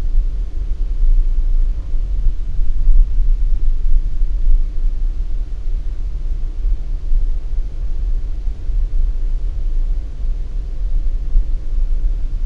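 Cabin rumble of a 2018 Subaru Forester on winter tyres driving over packed snow: a steady, deep road-and-tyre rumble under a faint, even engine drone.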